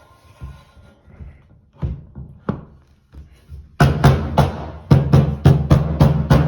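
Background music with a steady drum beat comes in loudly about four seconds in, after a few scattered knocks.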